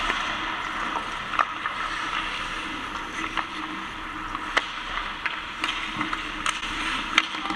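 Ice hockey play in a rink: a steady hiss of skate blades scraping the ice, with about half a dozen sharp clacks of sticks and puck, roughly one every second.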